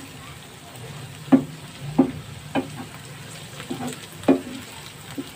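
Chopped onions sizzling in hot oil in a nonstick frying pan as they start to brown, stirred with a wooden spatula that scrapes and knocks against the pan about five times.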